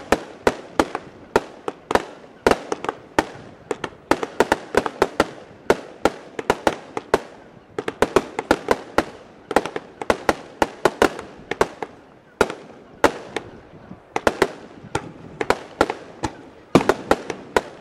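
Aerial fireworks going off in rapid volleys, several sharp bangs a second, with short pauses between bursts of shots.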